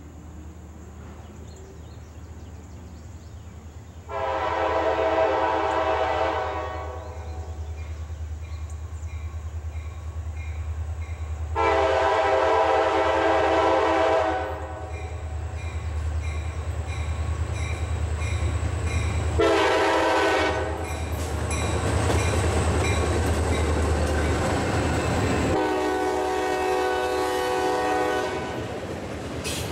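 Diesel locomotive air horn sounding long, long, short, long over the low rumble of the engine: the standard grade-crossing warning. The train's running noise grows as it draws near.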